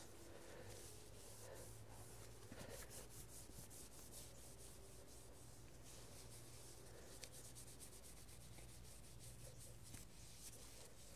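Faint rubbing of a cloth wiping degreaser over an alloy wheel, in many short strokes, over a low steady hum.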